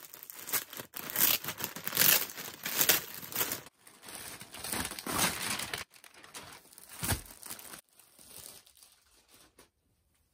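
Plastic poly mailer bag crinkling and tearing as it is ripped open and handled by hand. The crackling comes in bursts with short breaks and dies away near the end.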